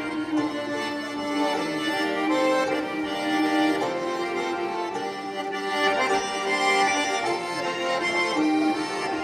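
Live Circassian folk dance music, with an accordion carrying the melody in long held notes.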